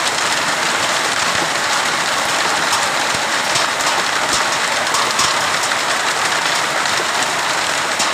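Hailstorm with heavy rain: a dense, steady hiss of rain pelting down, with scattered sharp ticks of hailstones striking.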